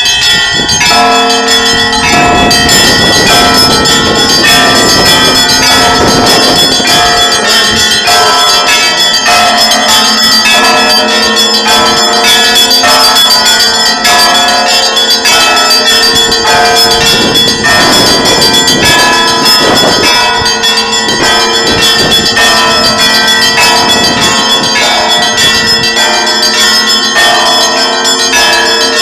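Church bells ringing in a dense, continuous peal: many bells of different pitches struck in quick succession, their tones ringing on over one another.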